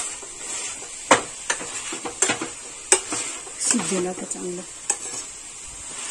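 Metal potato masher pounding softened vegetables in a kadai on the flame, with a sharp knock each time it strikes the pan, irregularly about once a second, over a steady sizzle of frying.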